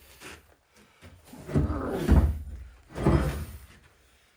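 Metal parts clunking and scraping in two loud bouts as the countershaft and its bearing of an NV4500 manual transmission are worked into the gear case, not yet seated.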